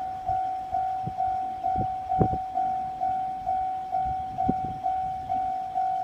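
Railway level-crossing warning bell ringing, one steady tone repeated about twice a second. Under it are a few brief low thumps, the loudest about two seconds in.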